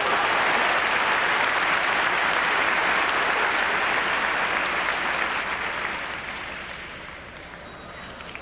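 Arena audience applauding a landed tumbling pass. The applause is loudest for the first five seconds, then dies down toward the end.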